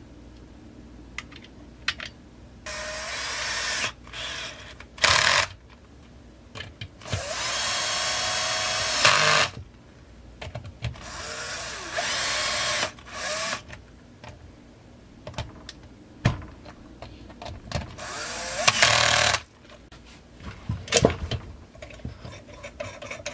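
Power drill-driver running in several short bursts, a steady motor whine each time, driving in the screws that hold the chainsaw's side covers, with small clicks of parts and screws being handled between runs.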